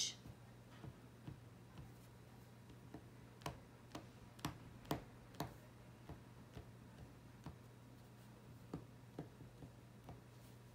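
Faint, irregular light taps as the back end of a paintbrush is pressed into clay wind-chime pieces on a table to stamp dot textures, a little louder in the middle, over a low steady hum.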